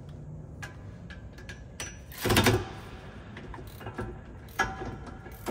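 Hand tools clicking and clanking on a Ford Transit's rear caliper bracket bolts as the mechanic strains to break them loose, with one louder half-second burst of noise about two seconds in. The bolts are very tight, which he puts down to thread locker on them.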